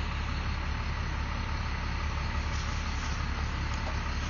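A steady low hum with a constant hiss over it.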